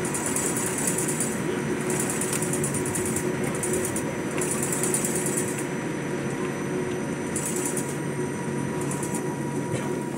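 Jet airliner's engines heard inside the cabin while the aircraft taxis: a steady drone with a faint constant whine, and a high hiss that swells and fades every second or so.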